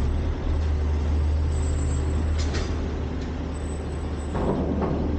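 Front-load garbage truck's diesel engine running with a steady low drone, a short hiss about two and a half seconds in and a brief rough noise near the end.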